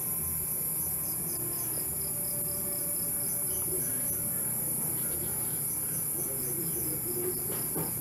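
Night chorus of crickets and other insects: a steady high-pitched shrill with a row of evenly repeating chirps over it.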